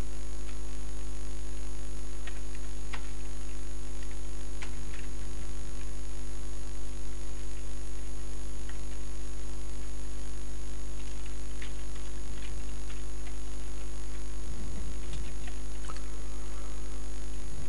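Steady electrical hum with a strong low drone throughout. Scattered single keyboard key clicks come on top as numbers are typed.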